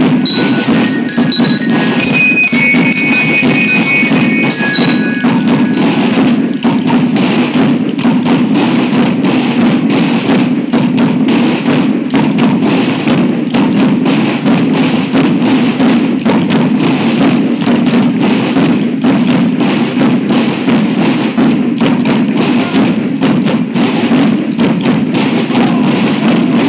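School marching band playing: metal bell lyres ring out a melody over the drums for about the first six seconds, then the drum section carries on alone with a fast, steady beat of snare and bass drums.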